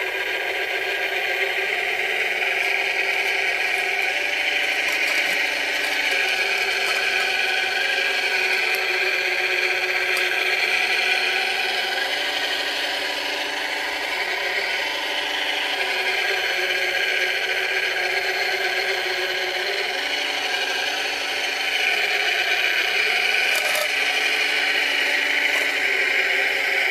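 Radio-controlled scale-model Cat 966 wheel loader running: a steady whine of its electric drive motors and gears, with a lower tone that dips and rises several times as it drives and works the loaded bucket.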